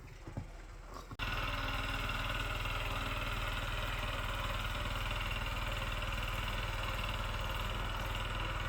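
Small motorized wheelbarrow's engine running steadily, coming in suddenly about a second in.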